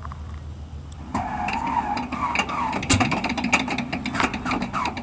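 A starter cranking one of the Cessna T-50 Bobcat's radial engines before it fires. About a second in, a whine starts that wavers and dips in pitch over and over, with scattered sharp clicks.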